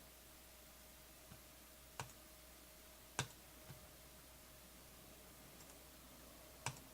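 Three sharp single clicks of a computer mouse, about a second and a half and three and a half seconds apart, the middle one loudest, over near silence with a faint steady hum.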